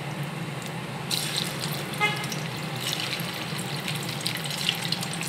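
Boiled potato chunks frying in hot oil in a pan: a steady sizzle with crackles that pick up about a second in as more pieces go in. A brief ringing clink about two seconds in.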